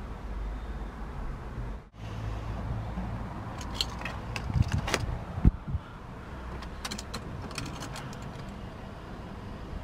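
Car keys jangling and clicking in two spells, with one sharp thump about halfway through, over a steady low rumble.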